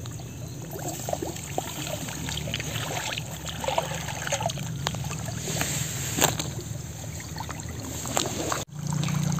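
Water sloshing and small irregular splashes as a person wades in a shallow, lily-covered pond and gropes under the water with his hands. The sound drops out briefly near the end.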